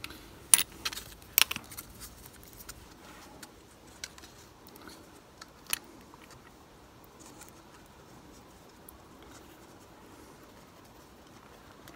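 PTFE tape being pulled off its roll and wound onto the threads of a metal air-line coupler, with handling noise from the fitting and the roll. A few sharp clicks in the first second and a half, then scattered small ticks and faint rustling that die down after about six seconds.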